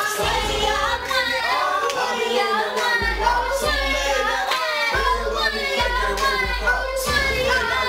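A song playing, with sung vocals over a deep, repeating bass line.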